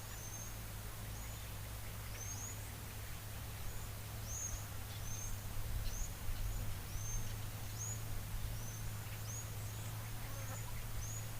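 Small birds giving short, high-pitched chip calls, repeated about once or twice a second, with a steady low hum underneath.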